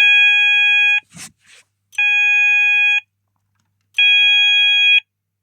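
Apollo XP95 addressable sounder beacon base sounding the pulsed alert tone: a steady high tone switched on for about a second and off for about a second, three times. This is the intermittent alert signal triggered from the Kentec Syncro panel's Function 2 button, as opposed to the continuous evacuate tone. A brief click sounds just after the first pulse.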